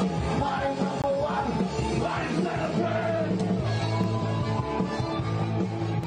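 Rock music with a singing voice and yells over it.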